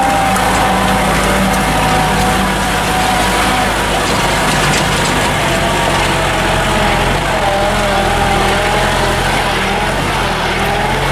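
Vehicle engine running steadily under load on a rough dirt hill road, with a continuous whine that wavers slightly in pitch, heard at the open side window.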